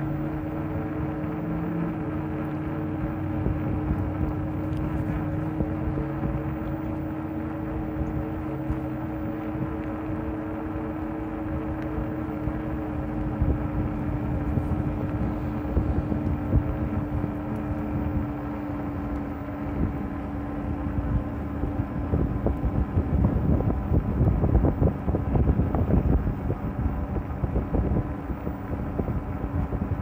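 Electric bicycle's motor whining at a steady pitch while riding, with wind rushing over the microphone that grows louder and gustier in the second half.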